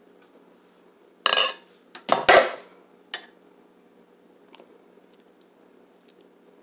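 A slow cooker's glass lid and a metal fork clatter and clink against the crock: a few sharp knocks and scrapes in the first three seconds, then a faint tick or two.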